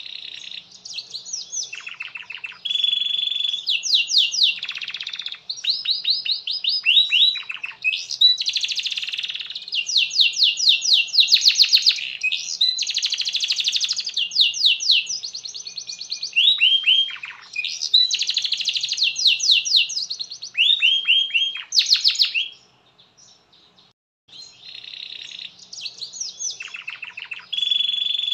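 Domestic canary singing a long song of fast trills and rolls, each run of rapidly repeated notes changing to the next. It pauses for about a second and a half near the end, then starts singing again.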